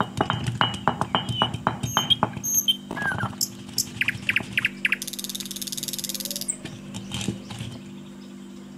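Stone roller of an ammi grinding stone crushing dried red chillies, peppercorns and cumin, a quick run of gritty knocks and clicks for about the first three seconds. After that, birds chirping, with a high buzzing trill about halfway through and a few faint knocks of the roller near the end.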